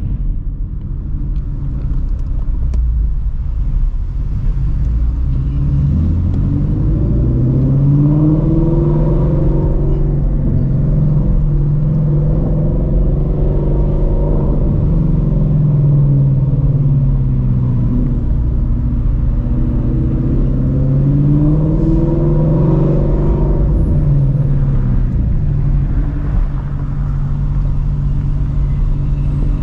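Straight-piped 2016 Ford Mustang Shelby GT350 with long-tube headers, its 5.2-litre flat-plane-crank V8 running under light throttle in traffic. The engine note is loud and steady, and its pitch slowly rises and falls three times as the car speeds up and eases off.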